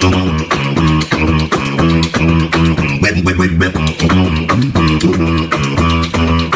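Beatboxing: fast vocal percussion of clicks and snare-like hits over short, repeated pitched bass notes, in a steady dance rhythm.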